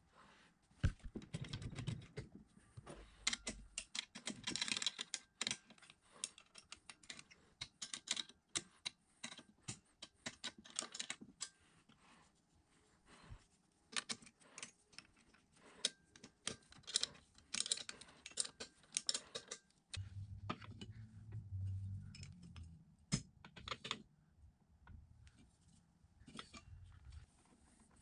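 Hand wrench clinking on the drill press motor's mounting nuts and bolts as they are tightened: a long run of light, irregular metallic clicks and taps, with a few seconds of duller low knocking about two-thirds of the way through.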